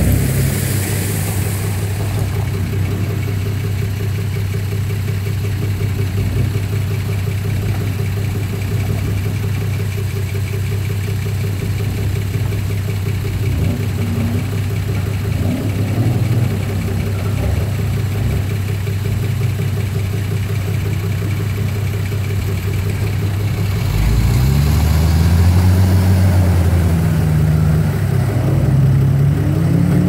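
Nissan Patrol four-wheel drive's engine idling steadily close by. About three-quarters of the way through it revs up and down repeatedly as the vehicle moves off into the river.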